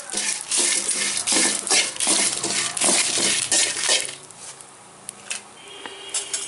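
A steel spoon scrapes and clinks against an aluminium kadai, stirring dried red chillies, bay leaves, curry leaves and other whole spices frying in hot oil. The stirring stops about four seconds in and the sound drops away.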